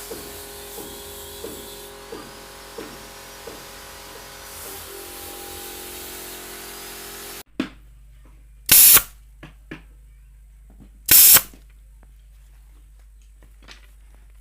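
A steady hum with a light tick about every two-thirds of a second. Then, after an abrupt change in the background, two loud short blasts a little over two seconds apart: a pneumatic nail gun firing, each shot a sharp bang with a brief hiss of air.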